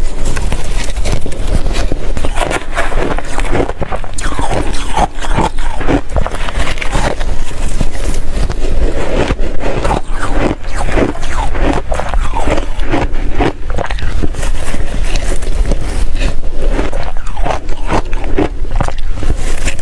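Ice being bitten and crunched between the teeth, close to the microphone: a rapid, irregular run of loud crunches.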